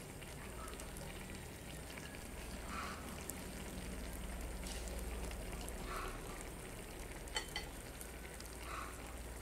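Pot of fish broth with starfruit and scallions simmering, a steady faint bubbling hiss, with a couple of sharp clicks from chopsticks against the pot about seven seconds in.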